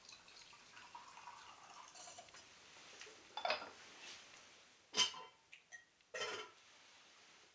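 Faint clinks and knocks of tableware being handled: a cup and small dishes picked up and set down, a few separate knocks, the sharpest about five seconds in.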